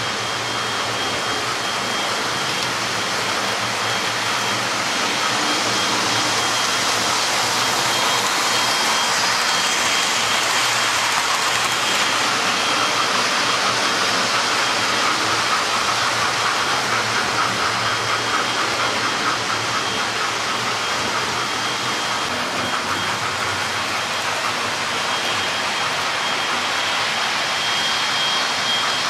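Model railway trains running on the layout: a steady rolling whirr of wheels on the rails and small electric motors, with a thin high whine. It swells a little in the middle of the stretch.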